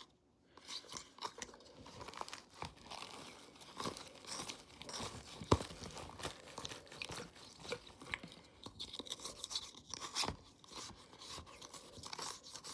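Irregular scraping, clicking and crinkling of hands working a DIY sushi kit's mixture and plastic parts, with one sharp click about five and a half seconds in.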